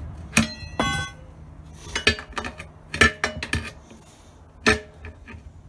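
Crowbars clanking against a metal wheel rim as a tire is pried off it: about five sharp metallic knocks, the first two ringing briefly.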